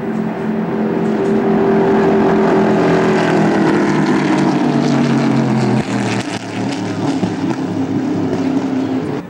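Stock car V8 engines running at speed past the pit wall, one long pass whose pitch sags slightly as it goes by. About six seconds in the sound cuts abruptly to another car's engine, a little quieter.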